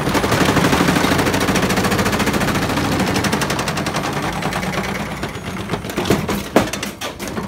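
Hotwired universal motor of a Logik washing machine spinning the drum flat out, the whole machine shaking and banging in a fast, loud clatter. Near the end the clatter eases into a few separate knocks.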